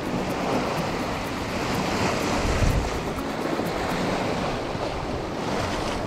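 Storm wind buffeting the microphone over the sound of sea waves, the gusts strongest about two to three seconds in.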